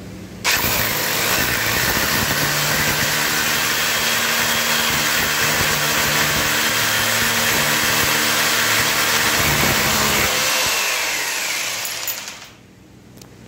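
Electric hammer drill with a 10 mm bit boring a hole into a wall, running steadily under load. It starts about half a second in and winds down near the end as the bit is pulled out.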